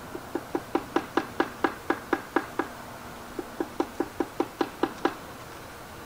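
Red-bellied woodpecker pecking at the entrance hole of a wooden nest box, testing it as a nest site. It gives two runs of sharp taps at about four or five a second, about a dozen and then, after a short pause, about nine more.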